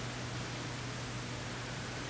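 Steady hiss with a low, steady hum under it: the background noise of an old recording's soundtrack, with no other sound.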